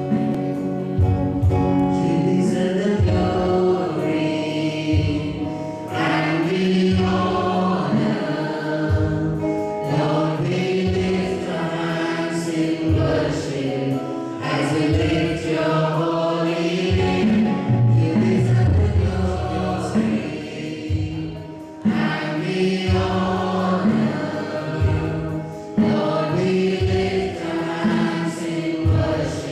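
Group of voices singing a worship song together over instrumental backing with a bass line.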